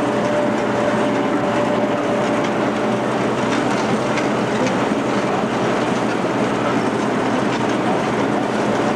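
Steady rumble and rattle of a moving vehicle, heard from on board.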